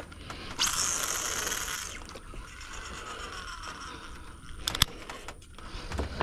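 Baitcasting reel spool spinning as line pays out on a cast: a sudden whir about half a second in, which fades and slowly drops in pitch as the spool slows. A couple of sharp clicks come about five seconds in.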